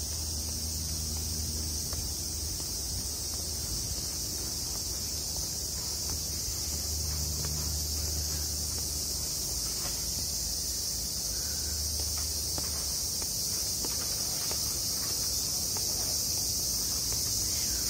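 Steady, high chorus of cicadas shrilling from the trees, with soft footsteps on stone steps beneath it.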